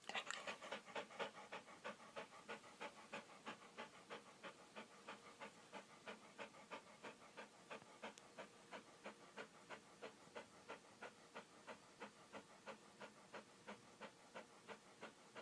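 Dog panting: rapid, even, rhythmic breaths, about four a second, faint, a little louder in the first second or two.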